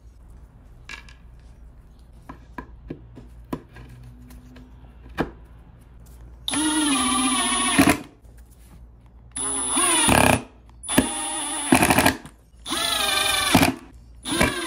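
Cordless drill/driver working the screws of a brass table hinge, running in four short bursts of about a second each with brief pauses between. A few faint clicks and taps come first.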